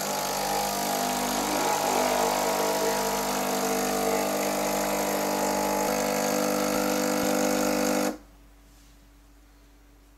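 Tchibo Cafissimo capsule coffee machine's pump running as it brews coffee into a mug: a steady buzzing hum with a hiss that starts suddenly and cuts off about eight seconds in.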